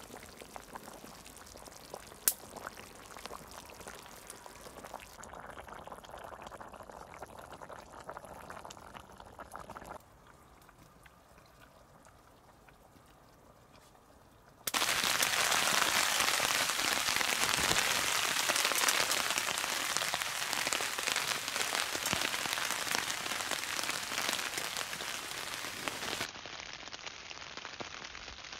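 Rain falling steadily on a tarp shelter, heard from underneath; it comes in abruptly about halfway through and is the loudest sound, easing somewhat near the end. Before it, a small wood fire crackling in a folding stove, with one sharp pop about two seconds in.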